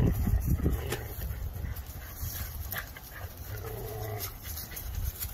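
A dog's sounds, with a few short clicks.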